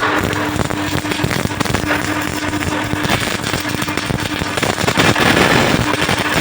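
MIG welding arc crackling steadily as the wire feeds into the weld, a dense continuous crackle with a faint steady hum underneath.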